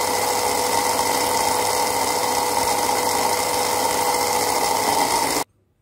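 Electric kitchen grinder running its small dry-grinding jar, blending powdered spices into masala with a steady motor whine. The motor cuts off abruptly near the end.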